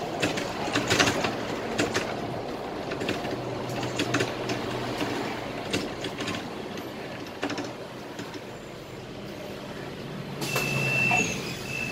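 Scania K320IA bus under way, heard from the driver's cab: steady engine hum with frequent rattles and clicks from the bodywork. About ten seconds in, a high electronic beeping starts and repeats in short pulses.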